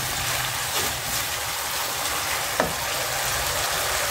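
Chili spice paste and sauce simmering and sizzling in a non-stick wok as a spatula stirs it: a steady hiss.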